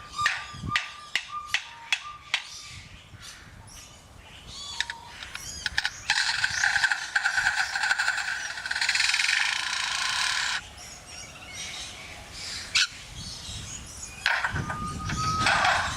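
Superb lyrebird mimicking construction-site noises: a quick run of sharp clicks over a thin steady tone, then a harsh mechanical buzzing for about four seconds that cuts off suddenly.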